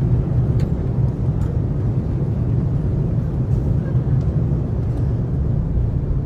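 Steady low rumble of jet engines for an airliner's takeoff, played as a sound effect over the show's loudspeakers.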